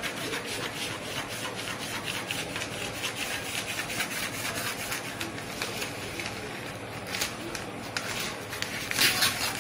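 Scissors cutting through brown pattern paper: a steady run of short snips with the paper rustling, a little louder near the end.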